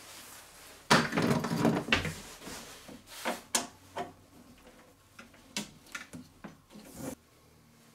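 Welding cables handled and a cable connector pushed into a front-panel socket of a welder: a loud rattle and clatter about a second in, then a series of separate clicks and knocks as the plug is seated and twisted.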